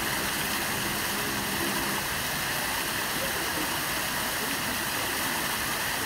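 Water from an artificial rock waterfall falling in thin sheets over stacked boulders and splashing into a shallow pool: a steady, even rush of falling water.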